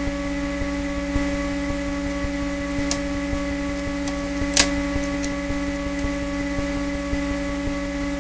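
A Eurorack modular synthesizer outputting noise with nothing patched: a steady whine of several pitches over a fast low ticking buzz. This is power-supply noise that the modules' VCAs amplify, traced by the owner to the case's switching power supply. Two sharp clicks, about three and four and a half seconds in, come as a module is handled.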